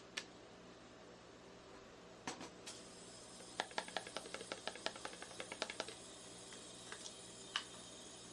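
Metal spatulas tapping and chopping on the cold plate of a rolled ice cream machine: two sharp clicks at the start, then a quick run of taps, about six a second, in the middle, over a steady low hum.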